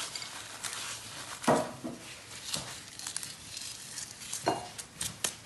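Gloved hands rubbing and crushing ajwain (carom seeds) between the palms over a glass bowl of oil, giving a handful of short scratchy rustles.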